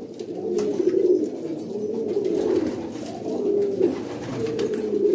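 Several domestic pigeons cooing, their low, warbling calls overlapping without a break.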